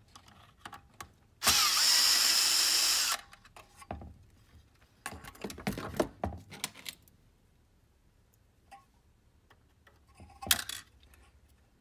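Cordless drill-driver with a quarter-inch nut driver running steadily for under two seconds, about a second and a half in, backing a collared screw out of a slide projector's solenoid. A few short clicks and knocks follow later.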